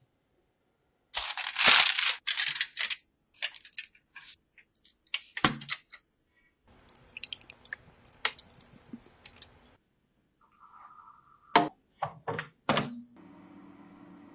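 Kitchen handling sounds: a loud rustle, then scattered clinks and knocks of glass cups. About seven seconds in, water pours from a glass kettle into the baking tray of the air fryer oven. Two sharp knocks and short beeps follow, and the 2GOOD air fryer oven's fan then runs with a steady hum.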